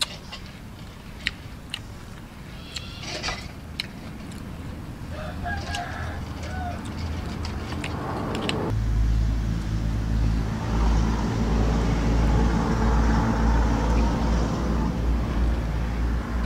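A rooster crowing in the background over a few light clicks of utensils. From about halfway through, a loud, low, steady engine drone takes over and keeps running.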